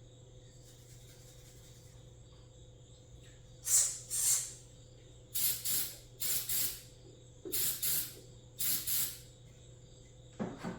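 Short hissing bursts of spray, mostly in quick pairs, about ten of them starting about a third of the way in, over steady crickets chirping.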